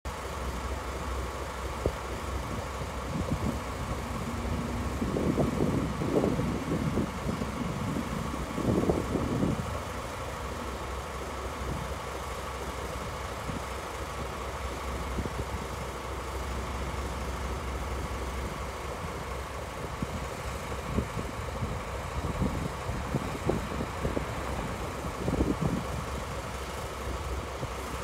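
JNR DE10 diesel-hydraulic locomotive's V12 diesel engine idling with a steady low hum. A few louder, rougher spells come about five seconds in and again after about twenty seconds.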